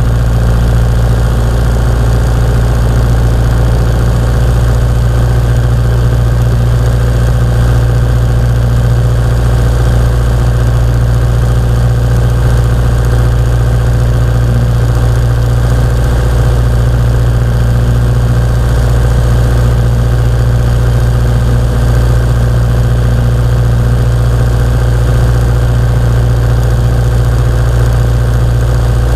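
Piper Warrior II's four-cylinder Lycoming O-320 engine and two-blade propeller running at a steady power setting on approach, heard from inside the cabin as a loud, even drone that does not change.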